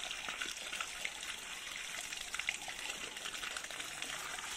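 A steady stream of water gushing and splashing onto a large fish and the tiled floor as hands rinse it.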